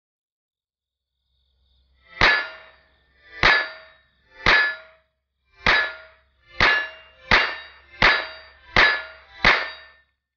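Nine shots from a .22 LR Ruger 22/45 pistol, each with a clanging, ringing metallic hit. The first shots come about a second apart and the later ones quicker. The trigger resets after every shot, now that its pre-travel has been backed off.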